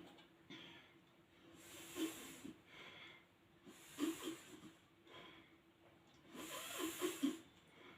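A person breathing through a homemade inhaler, a hose into a bottle of moonshine: drawing in through the mouth and breathing out through the nose. There are three hissing breaths about two seconds apart, the last one longer.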